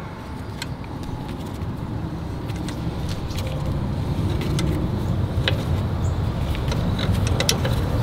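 Scattered light metallic clicks and taps from the rear brake caliper and old brake pad as the caliper piston is pushed back, over a steady low vehicle rumble that grows gradually louder.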